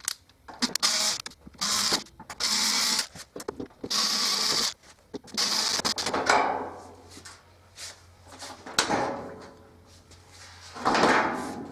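Several short whirring runs of a cordless screwdriver backing out the screws of a dishwasher's metal side panel, followed by rattles and clatters as the panel is worked loose.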